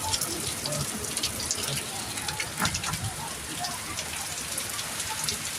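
Steady rain falling, with many scattered drops ticking on a nearby surface, during a thunderstorm's downpour.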